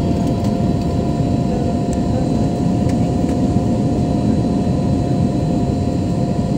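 Steady roar of a jet airliner's cabin noise, engines and rushing air, heard from inside the cabin during the descent to land, with a faint steady tone running through it.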